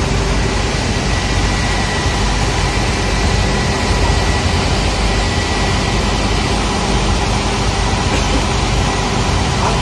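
Engine of a river excursion boat running steadily, heard on deck while under way, with a steady rushing of wind and water.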